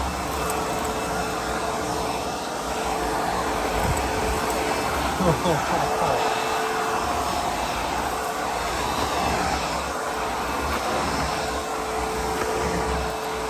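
ProTeam MegaVac vacuum cleaner running steadily while vacuuming the floor, its motor a constant whooshing hum, with a brief sliding sound about five seconds in.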